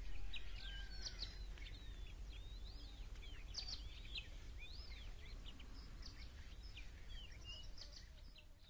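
Small birds chirping and calling in quick rising and falling whistles, over a low steady rumble; the sound fades out near the end.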